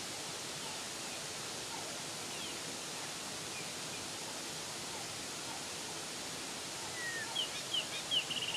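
Steady hiss of running creek water, with birds calling near the end: a few short chirps, a falling whistle and a quick trill.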